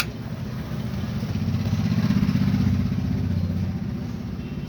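A motorcycle engine passing by, its fast pulsing rising to a peak about two seconds in and then fading away.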